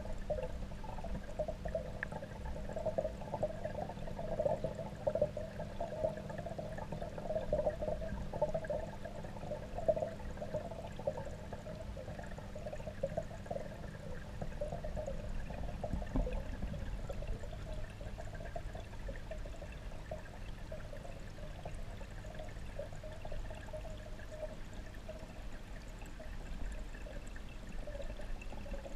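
Steady, muffled rush and bubbling of moving water heard from under the surface of a pond, with a crackly bubbling over a low rumble.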